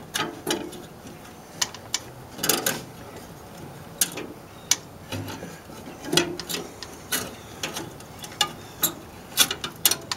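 Irregular sharp metallic clicks and light rattles from hands working the choke rod and its small linkage parts at a 1931 Model A Ford carburetor.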